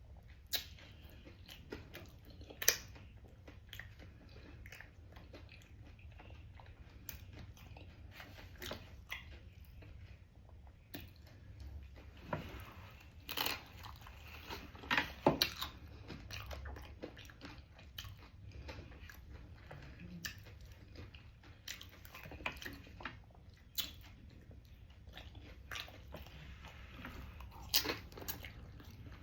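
Close-up eating sounds: a person chewing and crunching mouthfuls of food, with scattered sharp crunches and clicks, the loudest cluster about halfway through, over a low steady hum.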